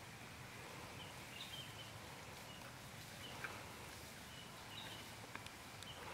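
Faint outdoor ambience with birds giving short, high chirps again and again, and a few sharp clicks, the loudest about halfway through.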